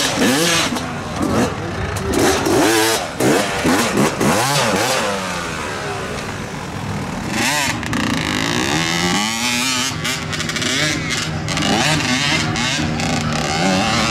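Hill-climb racing motorcycle engine revving hard, its pitch jumping up and down repeatedly for the first few seconds. It then climbs sharply once more and settles into a steadier, slowly rising drone.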